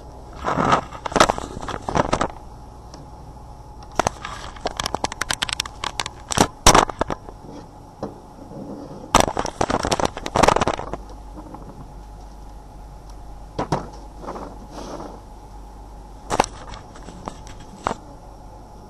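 Handling noise: irregular clusters of crackling clicks and scrapes as a webcam and a small plastic diagnostic interface with its USB cable are moved about on a desk, over a steady low hum.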